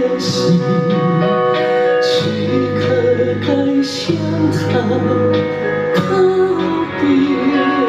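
A man singing a slow Mandarin ballad, a sustained, wavering line over instrumental backing, in a falsetto-like voice pitched an octave higher than usual.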